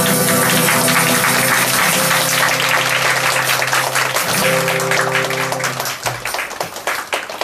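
Acoustic guitar's closing chords ring out and stop about six seconds in, ending the song. Audience applause builds underneath and carries on alone at the end.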